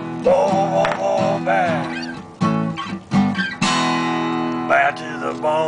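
Acoustic guitar music: strummed chords with a melody line above them that slides in pitch.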